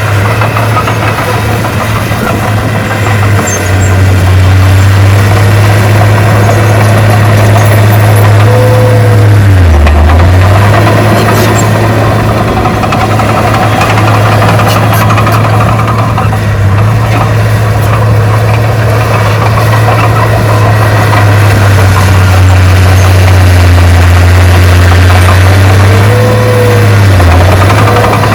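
Heavy diesel engine of earthmoving equipment running steadily under load, its low drone dipping briefly in pitch twice, about ten seconds in and near the end.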